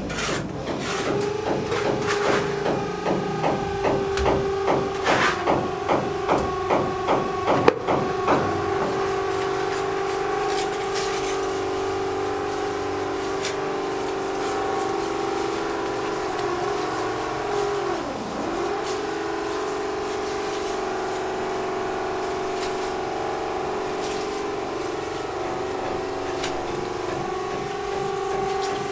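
Electric motor of a power tool running at a steady high pitch. For the first several seconds it pulses about two to three times a second, then it runs evenly, with one brief dip in pitch about two-thirds of the way through, as if it bogs down under load.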